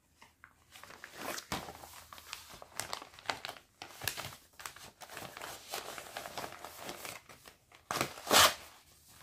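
Cross-stitch kit packaging and its printed instruction sheet crinkling and rustling as they are handled, with a louder crinkle about eight seconds in.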